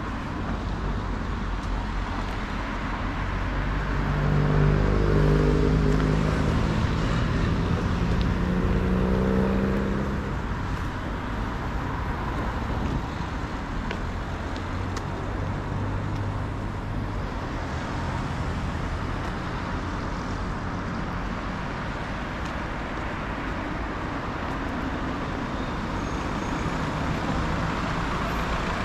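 Street traffic noise, with a motor vehicle passing close by between about four and ten seconds in, its engine note rising a little as it goes, then steady traffic around.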